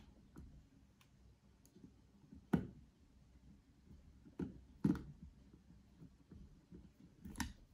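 Screwdriver turning screws into the plastic handle of a curling iron: sparse, faint clicks and light knocks as the tool works the screws, loudest about two and a half, five and seven and a half seconds in.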